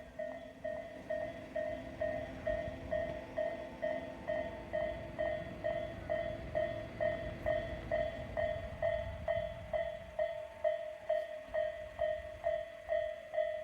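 Japanese railway level-crossing alarm on the Tobu Isesaki Line dinging steadily, a little over two strikes a second, while a train runs past with a low rumble that fades out about nine seconds in.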